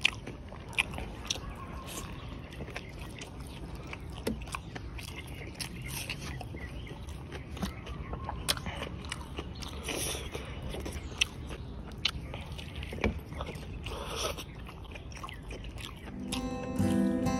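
Close-up chewing and biting on spiced chicken on the bone, with scattered wet mouth clicks and smacks. Acoustic guitar background music comes in near the end.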